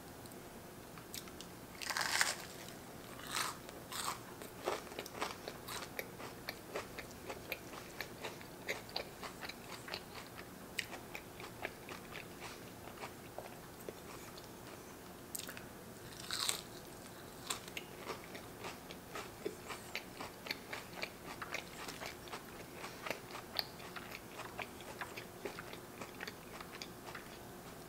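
Bites into fried battered onion rings, then steady crunchy chewing. Two louder bites come about two seconds in and about sixteen seconds in, with many small crunches between them.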